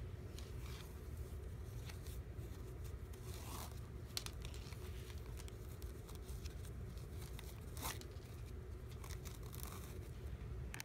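Flat woven shoelaces being pulled and looped while a shoe is tied: faint, scattered rustles and scrapes, the sharpest about eight seconds in, over a steady low hum.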